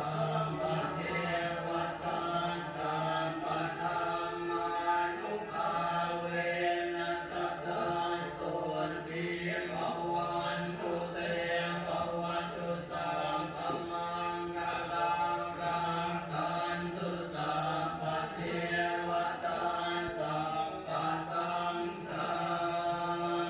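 Chant-like vocal music: voices chanting in a steady rhythm over a held low drone tone.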